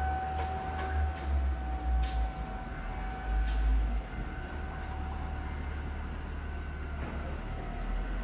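Outdoor tornado warning siren sounding its steady test tone, with a low rumble underneath; the tone weakens over the second half.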